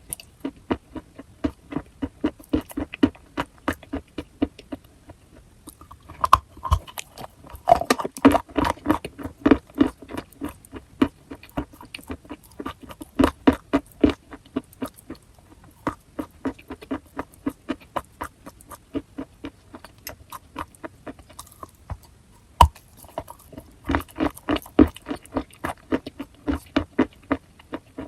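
Close-miked chewing of chalk: rapid, crisp crunches, several a second, with a few louder bursts of crunching and one sharp snap late on.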